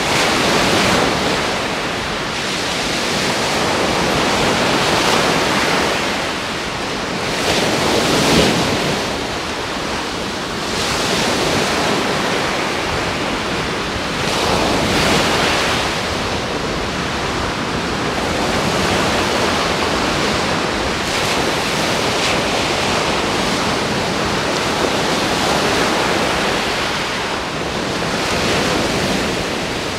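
Aegean Sea surf breaking and washing up a sandy beach. It is a continuous rush that swells and eases every few seconds as each wave comes in.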